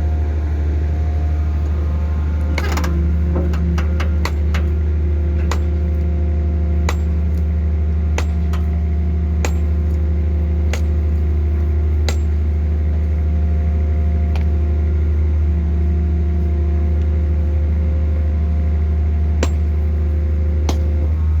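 Hydraulic static pile driver running: its power unit makes a steady low drone with a few steady tones over it. Sharp metallic clicks and clanks come at irregular intervals, more often in the first half.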